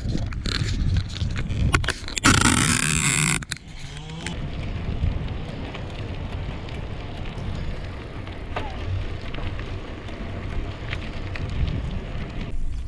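Camera being turned around on the handlebars, with a few knocks and a loud rubbing burst over the first three seconds, then the steady noise of a bicycle being ridden along the trail: tyre rumble and wind on the microphone.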